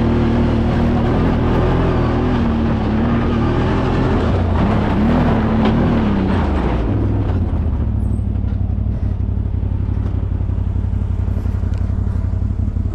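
Side-by-side UTV engine running under throttle over rough ground, its pitch wavering up and down. About seven seconds in it drops back to a lower, steadier note as the driver eases off.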